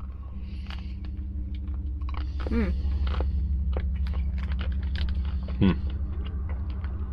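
Two people biting and chewing chocolate-coated ice cream bars, with many small crackles of the chocolate shell and the plastic wrapper and a couple of short "mm" hums, over a steady low hum inside the van.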